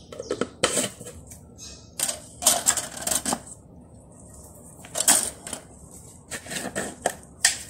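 Sharp clicks and clatters in irregular bursts from kitchen containers being handled: spice jars and their lids opened, closed and set down on the counter.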